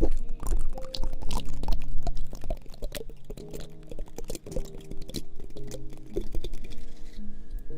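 Rapid, irregular tapping and clicking close to the microphone, over soft background music with held notes.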